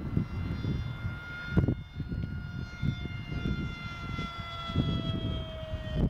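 A ParkZone Stryker F-27Q's brushless electric motor and pusher propeller whining in flight: a steady pitched whine that slowly sags in pitch over the last couple of seconds. Gusty low wind rumble and thumps on the microphone run underneath.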